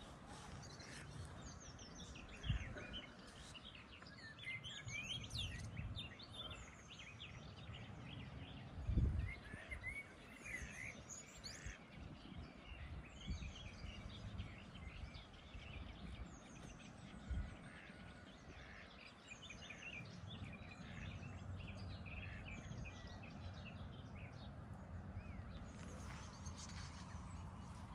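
Outdoor birdsong, many small birds chirping and trilling, over a low rumble with a few dull thumps, the loudest about nine seconds in.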